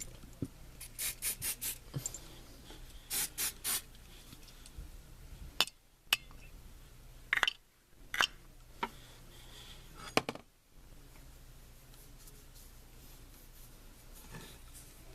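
Ballistol oil spray sprayed onto revolver parts in quick spritzes, a group of about four near the start and three more a couple of seconds later. Then a few sharp metallic clicks and light rubbing as the small gun parts are handled.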